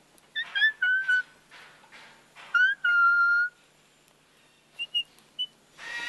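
Whistling in two phrases, each a short rising note followed by a steady held note; the second phrase, about two and a half seconds in, holds its note for most of a second. A few faint short chirps follow near the end.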